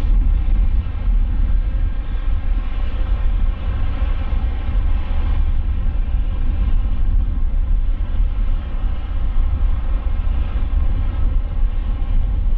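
LORAM rail grinder train grinding along the main line: a loud, steady machine roar with a deep rumble underneath, from its power cars and grinding stones on the rail.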